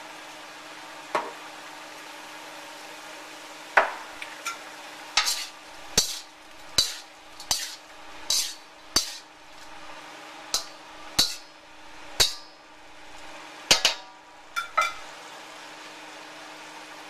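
A spatula scraping and clanking against a wok as vegetables and roast pork are stir-fried, about fifteen strokes coming every half second to second from about four seconds in until near the end, over a steady background hum.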